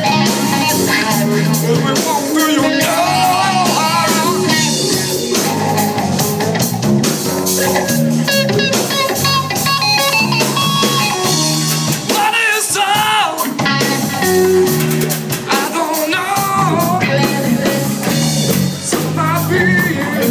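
Live rock band playing loud and steady: a Stratocaster-style electric guitar, an electric bass and a drum kit, with bent, wavering guitar notes about twelve seconds in.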